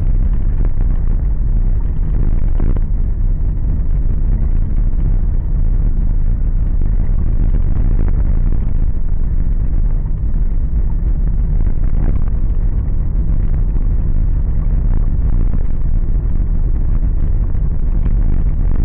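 Car driving on a rough, patched road, heard from inside the cabin: a steady low rumble of engine and tyres, with a few faint knocks from the car going over bumps.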